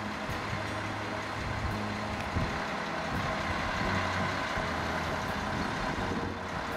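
A low engine hum that drops out and comes back every second or two, under a steady hiss.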